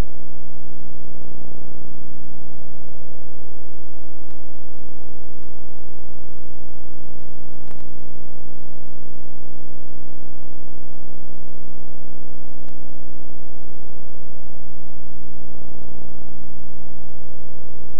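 Steady electrical hum and buzz, unchanging throughout, with two faint clicks, one about eight seconds in and one about thirteen seconds in.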